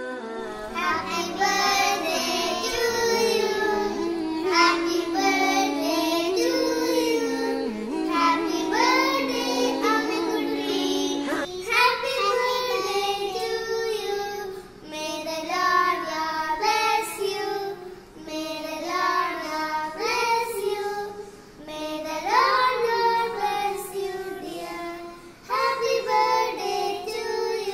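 Young girls singing a song together, with music behind them.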